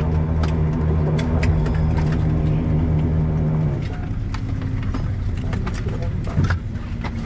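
Steady droning hum in the cabin of a Boeing 757-300 parked at the gate, which drops away suddenly about four seconds in. Scattered clicks and knocks run through it.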